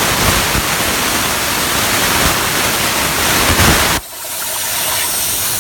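CNC plasma cutter torch cutting metal: a loud, steady hiss of the arc and its air jet that stops suddenly about four seconds in, leaving a quieter hiss.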